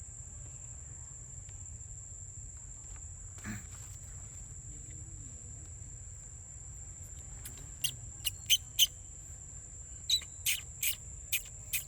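Steady high-pitched insect drone, joined about eight seconds in by a string of nine short, sharp, high chirps in two quick runs.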